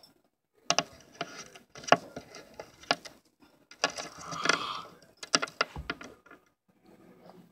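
Handling noise: a run of sharp clicks and knocks, with a brief rustle about four and a half seconds in.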